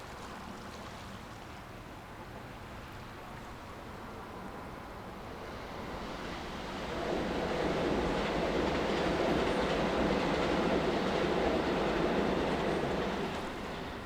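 A train passing by: a rumbling noise that builds over a few seconds, holds for about six seconds, then fades away near the end.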